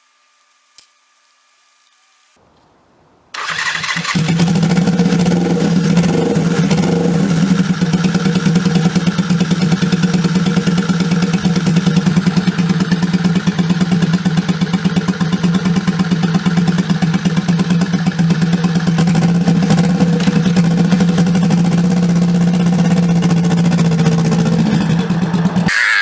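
Turbocharged Suzuki GS400 parallel-twin motorcycle engine starting about three seconds in and then running at a steady, unchanging pitch, fired up for a test run of a drilled-out Mikuni main jet. Near the end the sound drops away.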